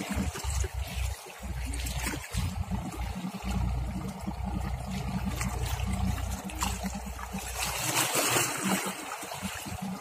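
Water lapping and trickling at the waterside, over an uneven low rumble. A louder rush of noise swells about eight seconds in.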